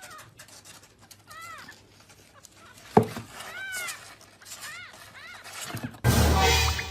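Kitten mewing: several short, high cries that rise and fall in pitch, with a sharp click about three seconds in. Near the end a loud burst of noise cuts in.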